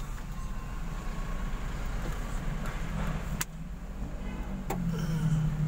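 Road traffic heard from inside a waiting car's cabin: a steady low engine hum, two sharp clicks, and, from about three-quarters of the way in, a louder low drone as a truck passes close by.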